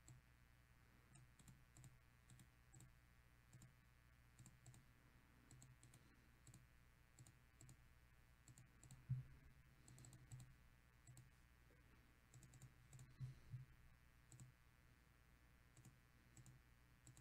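Near silence with faint, irregular clicks from a computer mouse and keyboard, the loudest about nine seconds in.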